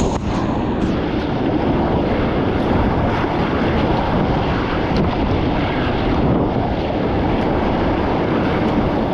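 Steady rush of fast river whitewater through a rapid, with wind buffeting the microphone.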